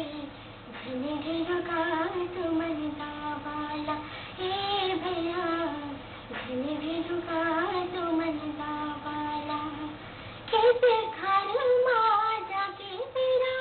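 A teenage girl singing solo in Chhattisgarhi, in long held notes that slide between pitches. After a short pause about ten seconds in, she comes in on a higher, louder phrase.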